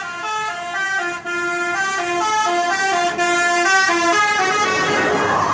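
Basuri multi-tone 'telolet' bus horn playing a quick tune of stepped notes, several tones sounding together. The horn stops about four and a half seconds in and gives way to a broad rush of noise.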